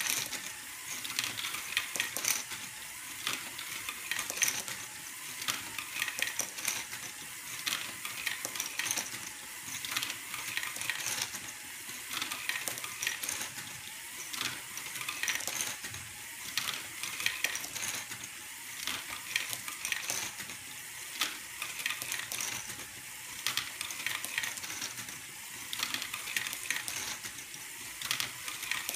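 LEGO Great Ball Contraption module running: plastic balls clatter as they drop into cups and are passed along, over an unbroken run of plastic clicks and ratcheting from its motor-driven mechanisms.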